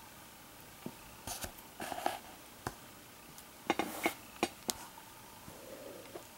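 Light clicks, taps and a little rustling from a paper-wrapped roll of half-dollar coins and loose coins being handled and set down on a table, with a quick run of clicks about four seconds in.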